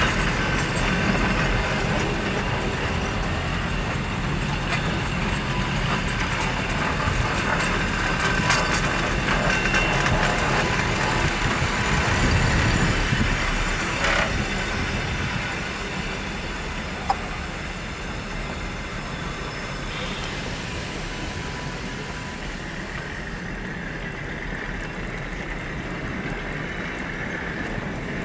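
Passenger coaches of a long-distance train rolling slowly past as the train brakes to a stop, the running noise easing off after about halfway. A sharp click comes about two-thirds through, followed shortly by a steady high hiss lasting about three seconds.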